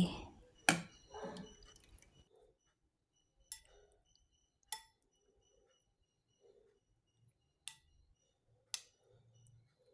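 A spoon clinking against a glass bowl: about five separate light clinks, a second or more apart.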